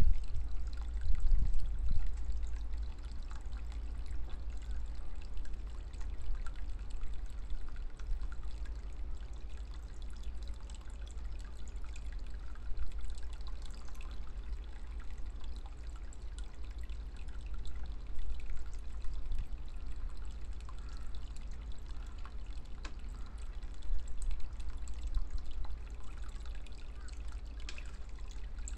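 Water pouring steadily from a bamboo spout into a small pond, a continuous trickle and splash, over a low rumble that is strongest in the first couple of seconds.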